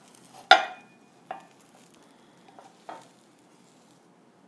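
Spatula and nonstick frying pan knocking and scraping as an omelet is slid out onto a plate: one sharp clack about half a second in, then a few fainter knocks.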